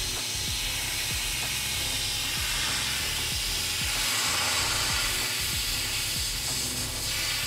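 Steam cleaner lance hissing steadily as it jets onto new brickwork to lift cement stains.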